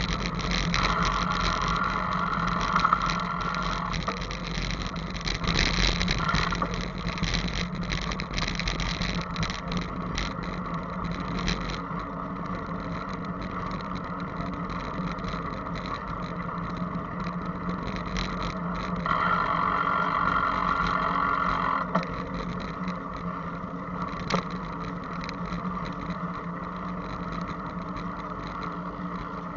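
Steady wind and road noise from a moving bicycle, picked up by a camera mounted on it, with a constant low hum underneath.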